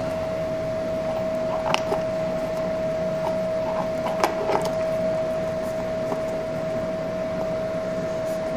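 A steady hum holding one pitch, with a few light clicks and knocks about two seconds in and again around four seconds in.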